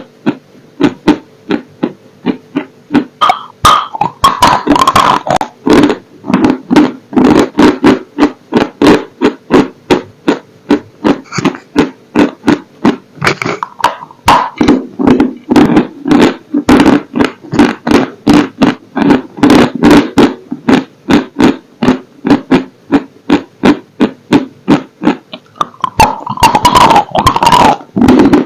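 Close-miked chewing of a dry, crumbly substance, giving loud dry crunches about two to three times a second. Denser crackling comes with fresh bites about 3 seconds in and again near the end.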